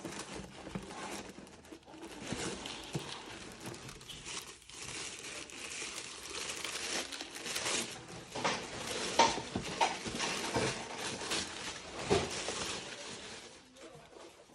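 Tissue paper crinkling and rustling as hands unwrap it from around a modem and lift the modem out of its cardboard box. The crackling is thickest and loudest in the second half, then dies down near the end.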